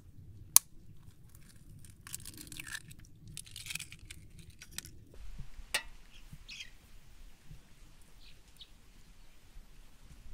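An egg cracked with a sharp tap on the rim of an aluminium pot about half a second in, followed by crackling as the shell is pulled apart and a few more taps. Near the end, a few faint bird chirps.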